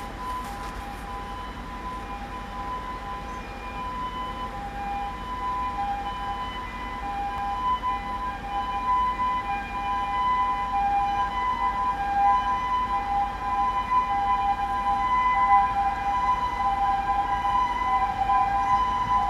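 Japanese level-crossing warning bell ringing, two electronic tones sounding over and over, growing louder through the second half. A low steady rumble from the waiting KiHa E130 diesel railcar idling lies underneath.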